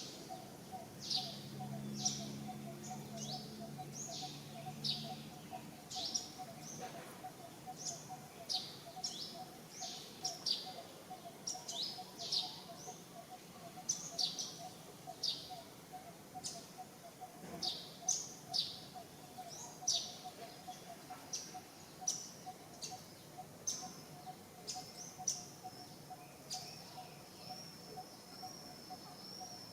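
Repeated short, high-pitched chirping calls, each sliding downward, about one or two a second, over a steady pulsing drone; near the end a high, wavering whistle is held for a few seconds.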